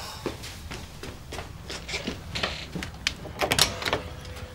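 Scattered light clicks and knocks of a front door being handled and opened, with a few louder knocks about three and a half seconds in.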